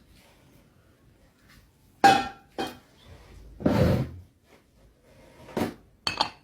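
Kitchen dishes and utensils knocking and clinking: a sharp strike about two seconds in, one with a brief ring, another soon after, a longer rough scrape or shuffle just before the middle, then a few more knocks near the end.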